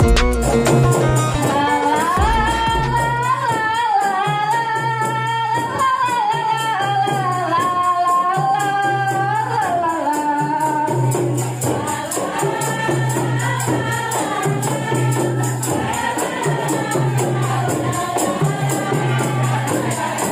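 A group of women singing, a lead voice on a microphone carrying the melody, with tambourines shaken and struck in rhythm over a steady low beat.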